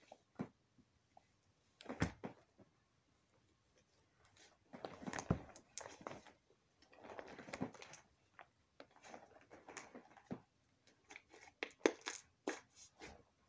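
White Elmer's glue slime being kneaded and stretched by hand, making faint, irregular sticky squishes and small pops and clicks.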